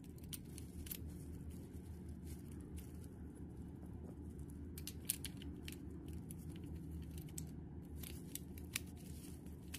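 Scattered small clicks and rustles of gloved hands handling a Glock 19X polymer frame and its small metal trigger-group parts, over a steady low hum. The sharpest clicks come about five seconds in and again near the end.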